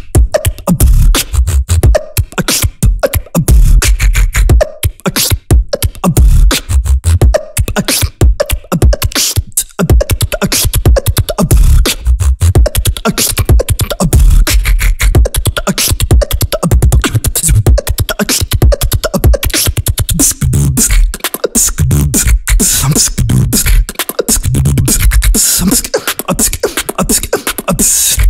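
Beatboxing: a continuous beat made entirely with the mouth, with deep, punchy kick and bass sounds under a fast stream of sharp clicking snare and hi-hat sounds.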